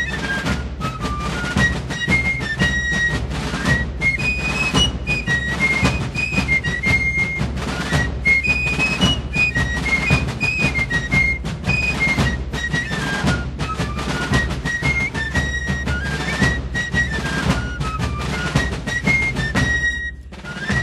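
Fife-and-drum music: a shrill, flute-like fife melody over rapid snare drumming, with a brief break near the end.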